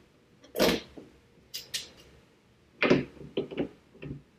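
Sharp plastic clicks and knocks from hands working the underside of a Mustang GT's hood, pressing push-pin retainers back into the hood insulator: a louder scuff about half a second in, two quick clicks, then a cluster of knocks near the end.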